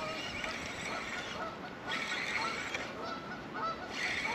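Geese honking repeatedly.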